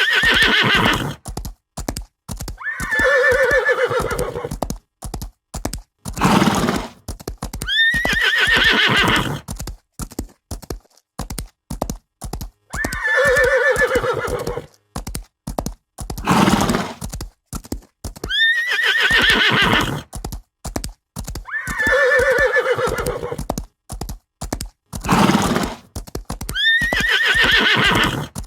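Horses neighing and whinnying again and again over a steady clatter of hoofbeats. Several whinnies open with a sharp upward squeal, and shorter, lower calls come between them. The same run of calls repeats about every nine seconds, like a looped sound effect.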